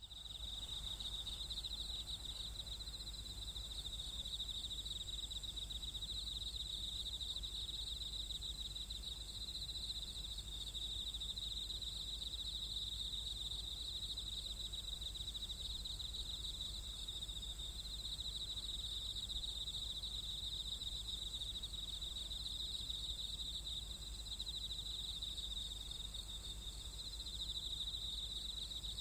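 Night insects, crickets among them, trilling in a steady chorus: a high, rapidly pulsing trill with a fainter, even higher hiss above it, over a low steady hum.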